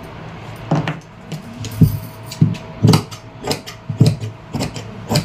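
Tailor's scissors snipping through printed suit fabric on a cutting table: a regular series of sharp cuts, about two a second, starting about a second in.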